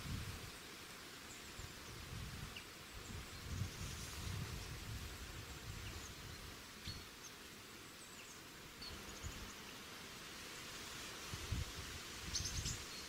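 Faint outdoor ambience: a steady hiss with irregular low rumbles, and a few short, faint high chirps scattered through it, several close together near the end.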